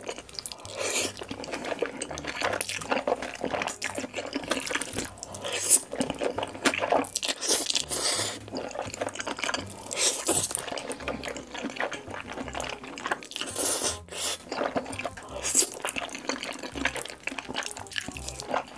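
Close-miked slurping and chewing of black bean sauce noodles (jjajangmyeon): wet sucking of long noodle strands and mouth smacks at irregular intervals, with an occasional louder slurp.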